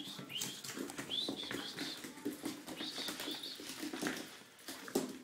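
A dog whining in short, repeated high squeals, each rising and falling, mixed with scratching and scuffling.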